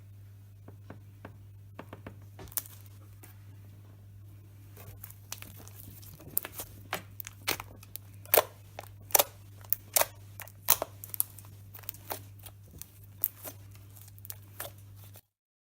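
Clear-glue and saline slime being squeezed and stretched by hand, making sharp pops and clicks: a few small ones at first, then a quicker, louder run from about five seconds in. A steady low hum runs underneath.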